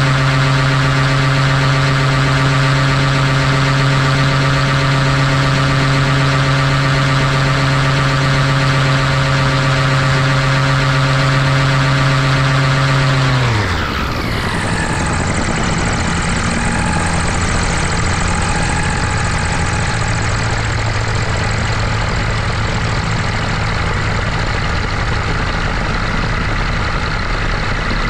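Nano ultralight gyrocopter's engine running steadily in flight, then winding down and stopping about halfway through, its pitch falling away fast. After that only a steady rush of air remains as the gyrocopter glides on without engine power.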